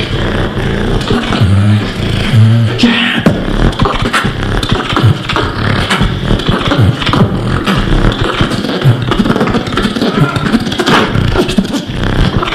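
Beatboxing into a cupped handheld microphone and amplified: deep bass notes, loudest in the first few seconds, under a fast run of sharp clicks and snare-like hits.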